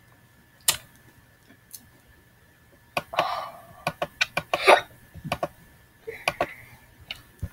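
Irregular sharp clicks, about a dozen, with a couple of short scuffs, from working the computer's pointing device while drawing. A faint steady high whine sits underneath.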